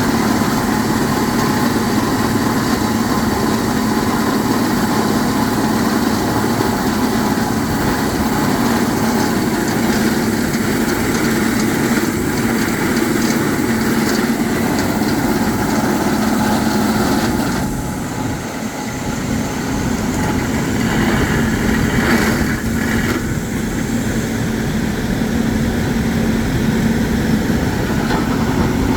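Hard rock drilling rig's engine running steadily, with a brief drop in level about 18 seconds in before it picks back up.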